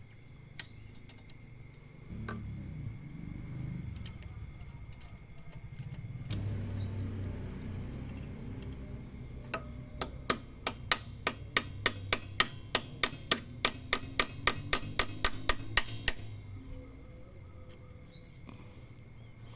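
Hand tools working the retaining lock off a scooter's center-stand pivot: scattered faint handling knocks, then a quick, even run of sharp metal taps, about three a second, lasting some six seconds past the middle.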